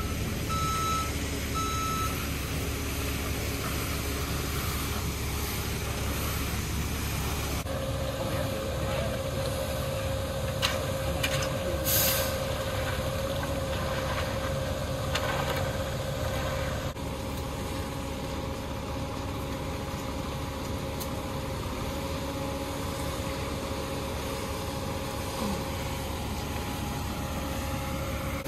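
Ready-mix concrete truck's diesel engine running steadily, with reversing beeps for the first couple of seconds. A steady whine joins about eight seconds in, and there is a short hiss of air about twelve seconds in.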